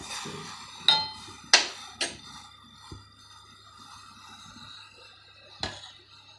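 A metal utensil clinking against a steel pot of boiling tea: a few sharp, ringing strikes, the loudest early on and the last near the end, over a faint steady hiss.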